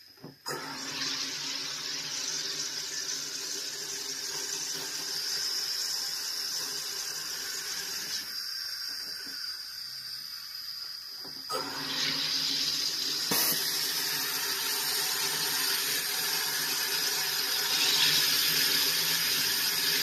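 SodaStream carbonator forcing CO2 gas into a small bottle of syrup drink: a steady hissing fizz that starts suddenly. About eight seconds in its lower part drops away for about three seconds, then it comes back louder.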